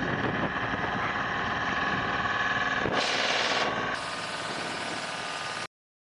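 Water tanker truck's engine running steadily while it sprays water, with a brief louder hiss about three seconds in; the sound cuts off suddenly near the end.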